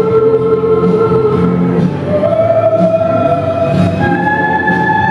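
Music from a song performance: long held notes that step up in pitch twice, about two and four seconds in, over a steady accompaniment.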